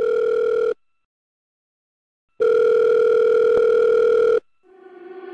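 Telephone ringback tone: a steady electronic beep that stops under a second in, then after a pause of nearly two seconds sounds again for about two seconds. Music fades in near the end.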